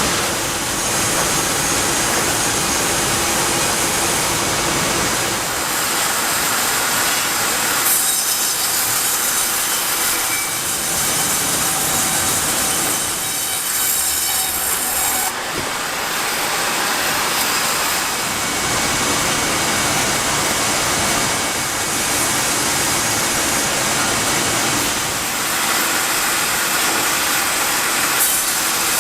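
Sawmill machinery sawing wood: a loud, steady noise whose character shifts abruptly every few seconds.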